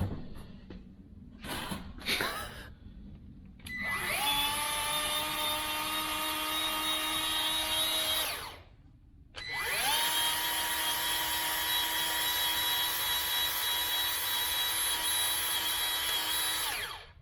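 Milwaukee M18 cordless grease gun (2446-20) motor running while being primed, after a few handling clicks. It spins up to a steady whine for about five seconds, stops for a moment, then spins up and runs again for about seven seconds. Grease is still working its way down the hose.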